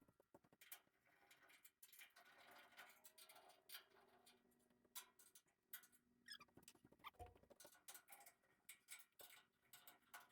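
Near silence, with faint, scattered small clicks and taps at irregular intervals.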